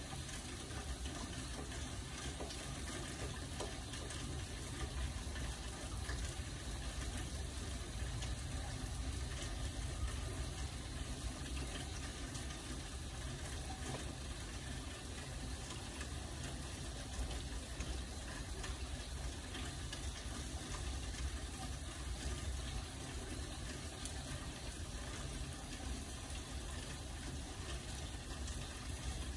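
Steady rain: an even hiss with a strong deep low end and faint scattered drop ticks, unchanging throughout.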